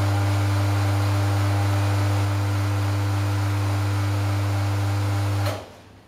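Pierro Espresso Silver commercial espresso machine's pump running during a shot extraction: a loud steady hum with a hiss over it. It cuts off suddenly about five and a half seconds in as the extraction ends.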